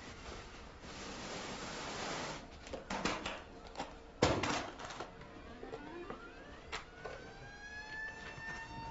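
Clicks and snaps of a hard case's catches being opened and its lid handled, the loudest snap about four seconds in. In the last few seconds, soft musical tones slide upward and then hold.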